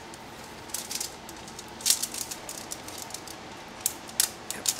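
Scattered crinkly rustles and crackles as self-fusing silicone tape is stretched and wrapped tight around a cable, several sharper crackles standing out near the middle and toward the end.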